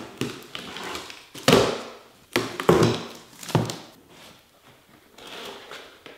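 Cardboard shipping box being opened by hand: flaps pulled open and cardboard rustling and knocking, with four loud, sharp knocks and scrapes about one and a half to three and a half seconds in as a flat cardboard inner box is pulled out.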